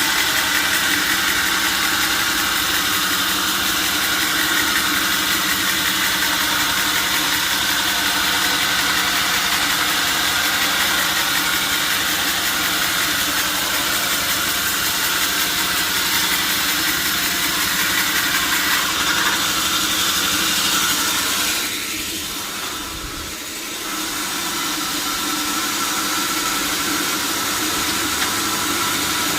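Sawmill saw machinery running steadily with a constant hum and hiss. It drops briefly about 22 seconds in, then picks back up.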